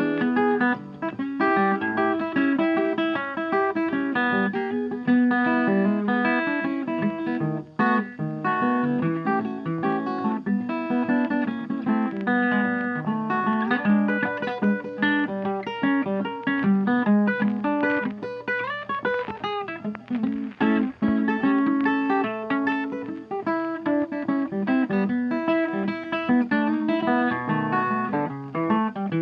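Background blues music led by plucked and strummed guitar, with a steady beat.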